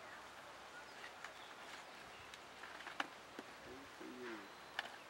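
Sharp clicks and light crackling as baked clay and dried banana leaf are broken apart by hand, loudest about three seconds in and again near the end. A dove coos once in the background about four seconds in.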